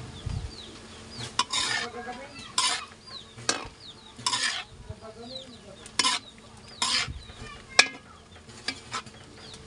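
Spatula stirring squid and bell pepper in a metal wok: about ten uneven scraping strokes against the pan, with sizzling from the hot sauce between them.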